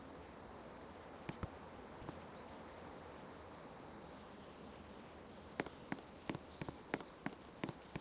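Shiba Inu chewing food: a couple of sharp clicks, then from about halfway on a quick run of smacking chewing clicks, roughly three a second.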